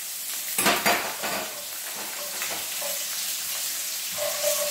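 Mustard seeds and water-soaked chana dal sizzling and spattering in hot oil in a nonstick pan, stirred with a silicone spoon. A louder burst of crackling and knocks comes about half a second in.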